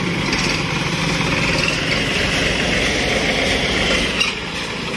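Massey Ferguson tractor's diesel engine running at low speed as the tractor is driven slowly past close by, easing off slightly about four seconds in, with a sharp click at that point.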